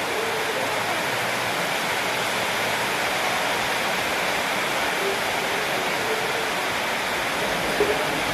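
Steady rushing hiss with faint murmured voices underneath, and a short sharp click near the end.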